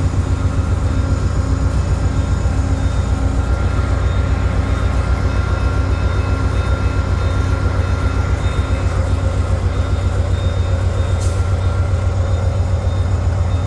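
Diesel passenger locomotive standing and idling, a steady deep engine rumble with a faint steady whine above it.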